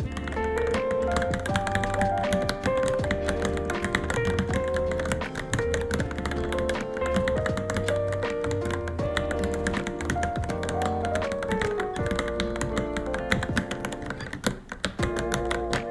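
Continuous typing on a Varmilo Minilo keyboard, many keystrokes a second, with a short pause near the end. Background music plays over it.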